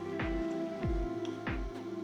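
Background music with a steady beat: a deep kick drum about every two-thirds of a second under held synth-like tones.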